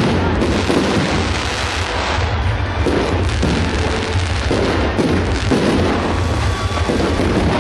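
Aerial fireworks bursting in quick succession: a continuous run of bangs and crackles, one every half second to second.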